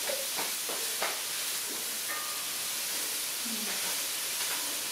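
Andouille sausage and chicken sizzling in a hot skillet, a steady frying hiss, with a few light scrapes as a spatula stirs the pan in the first couple of seconds.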